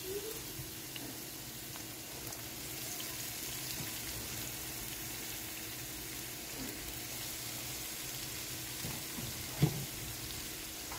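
Faint, steady sizzling from a frying pan of onion masala with shredded cabbage on top, with one sharp knock near the end.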